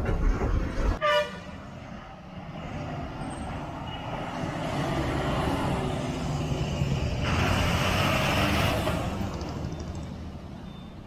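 Ashok Leyland truck sounding a short horn blast about a second in, then its engine running as it drives past, swelling to a rushing noise around eight seconds in and fading.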